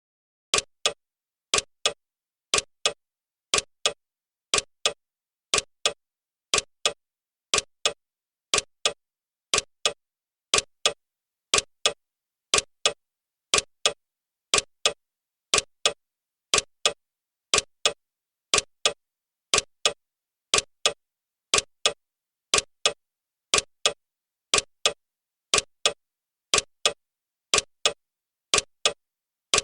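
Clock ticking sound for a countdown timer: a sharp double tick-tock once a second, the two clicks of each pair about a third of a second apart, steady and even throughout, with silence between the ticks.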